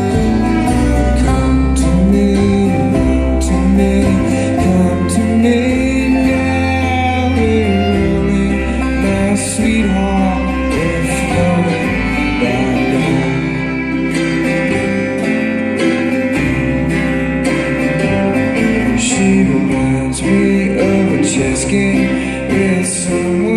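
Bluegrass string band playing a song live: plucked strings over a moving bass line, with singing.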